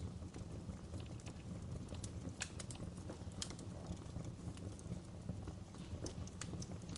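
Wood fire crackling, with irregular sharp pops and snaps over a steady low rumble of the burning fire.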